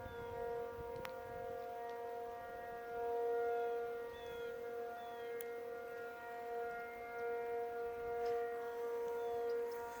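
Outdoor civil-defense warning sirens sounding a steady tone that holds its pitch while its loudness slowly swells and fades. Faint short chirps sound over it now and then.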